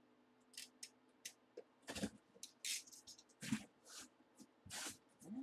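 Packing tape on a cardboard shipping box slit with a blade, then the cardboard flaps scraped and pulled open: a series of short, faint scrapes and rustles.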